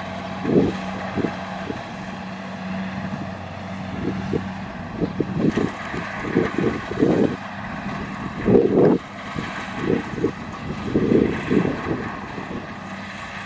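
Kubota DC70 combine harvester's diesel engine running steadily as the machine cuts and threshes rice, with gusts of wind buffeting the microphone.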